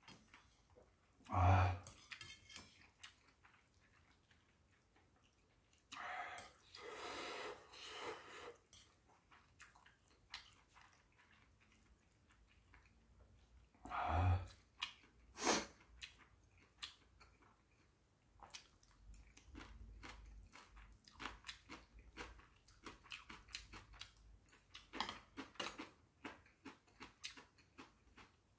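A person eating hot ramen noodles close to the microphone: several loud slurps of noodles, the first about a second and a half in and a longer one around six to eight seconds, then steady wet chewing with many small clicks.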